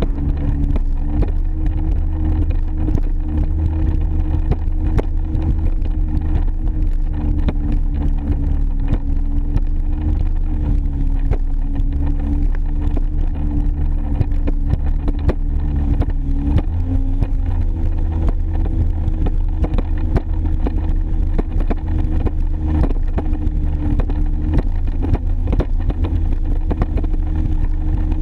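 2001 Sea-Doo XP jet ski's two-stroke twin engine running steadily at speed, with wind buffeting the microphone and the hull slapping the water. The engine note dips slightly a little over halfway through.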